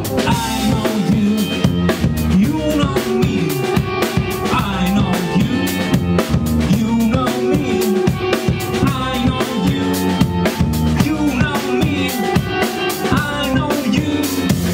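A rock band playing live: a drum kit keeping a steady beat with bass drum and snare, under an electric bass guitar line and a bending melodic line above.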